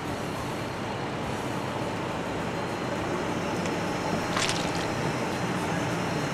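A car's engine running as it rolls slowly over a ham on an asphalt driveway, with a brief sharp hiss about four and a half seconds in.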